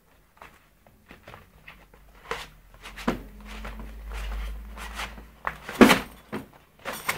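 Scattered knocks and clicks of handling, with a low rumble in the middle and the loudest knocks near the end.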